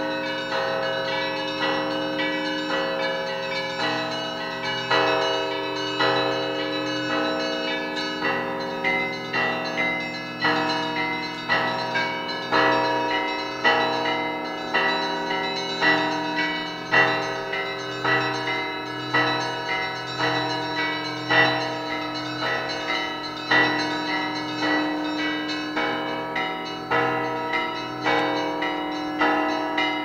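Russian Orthodox bell ringing (zvon) from a monastery belfry: several bells of different pitches struck in a rhythmic pattern, about two strikes a second. The smaller bells chime over the lower, sustained hum of the larger bells.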